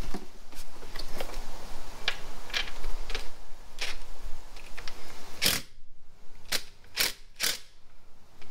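Irregular clicks and light clinks of hand tools and metal parts being handled in an engine bay. Four sharper clicks come in the second half.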